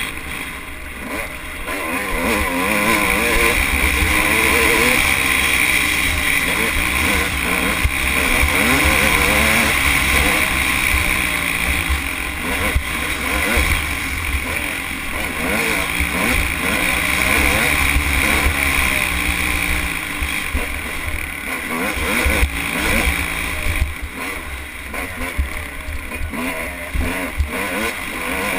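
Dirt bike engine running at race pace, its revs rising and falling as the rider works the throttle through the gears, over heavy wind buffeting on the camera. The engine eases off for a few seconds near the end.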